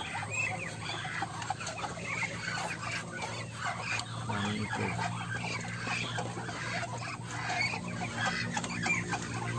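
A crowd of young ducklings peeping, many small high chirps overlapping without a break.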